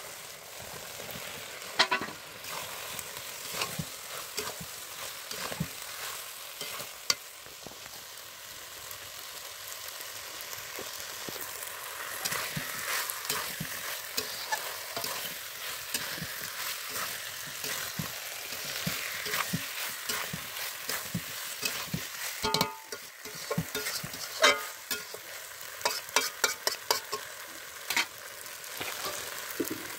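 Spice paste sizzling in hot oil in a kadai as it is fried down (kashano), with a spatula stirring and scraping it. The spatula clicks sharply against the pan, most often near the end.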